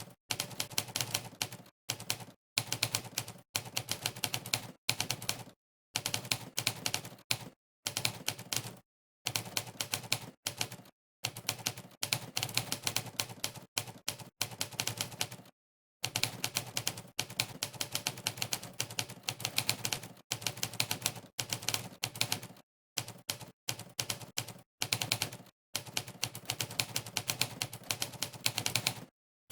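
Monkeytype's typewriter key sound effect, played once for every keystroke of fast typing: rapid runs of clacks in bursts of one to two seconds, separated by short dead-silent gaps.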